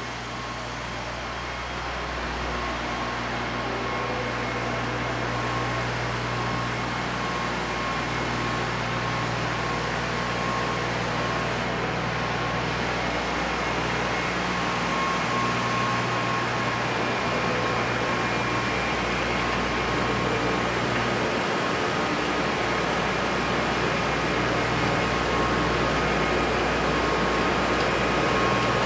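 Steady industrial machinery hum from a power plant: a low drone and a held mid tone over an even rushing noise, fading up over the first few seconds and then holding steady.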